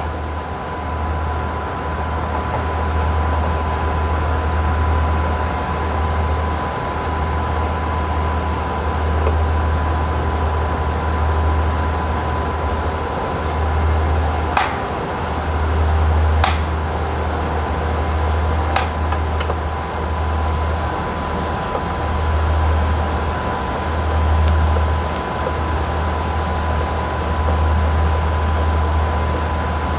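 Steady whir of cooling fans and air handling, with a constant high whine and a low hum that swells and fades every second or two. A few sharp clicks come about halfway through, typical of small parts and screws being handled during reassembly.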